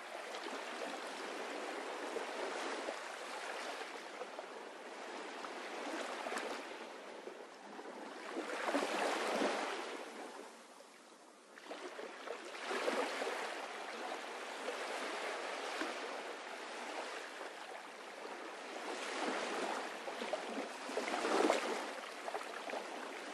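Water washing in gentle swells: a steady hiss that rises and falls every few seconds and fades almost away for about a second near the middle.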